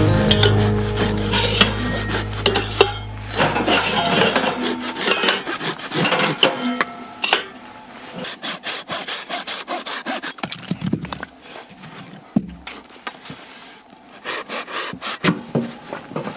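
Metal stovepipe sections scraping and sliding out of one another and clinking as they are pulled from inside a tent stove's firebox and set down, in many short scrapes and clicks. Background music fades out in the first few seconds.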